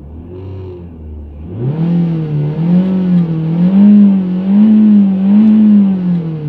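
Renault Megane 2 1.6 16v petrol engine revved up about a second and a half in and held at high revs, the engine note swinging up and down about once a second, then falling back near the end. The car has misfire symptoms and shakes, with no fault codes stored.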